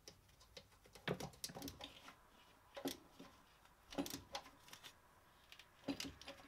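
Faint, irregular clicks and light metallic knocks from a gloved hand and tools working in a van's engine bay, fitting the earth strap, coming in four short clusters.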